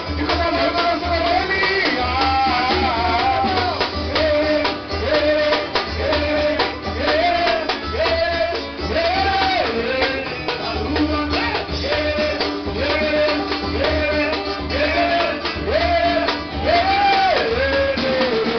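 Live samba band playing: a voice sings a short melody phrase over and over above a steady pulsing bass and busy percussion.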